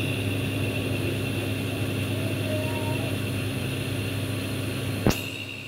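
A steady mechanical hum with a thin, constant high whine above it, with one sharp click about five seconds in.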